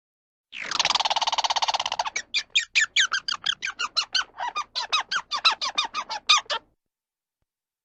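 A bird call: a harsh, buzzing squawk of about a second and a half, running straight into a fast series of short notes, about six a second, that stops suddenly.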